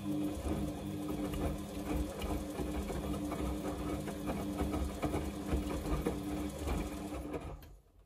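Samsung front-loading washing machine's drum motor turning the drum in the wash cycle: a steady motor hum with scattered knocks from the wet laundry tumbling, running for about seven seconds and stopping near the end as the drum comes to rest.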